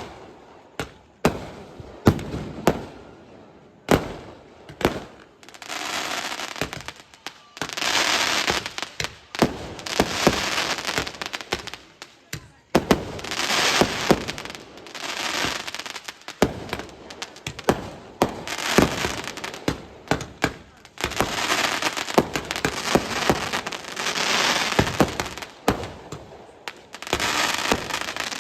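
Fireworks going off: a few sharp separate bangs at first, then long waves of dense crackling full of pops.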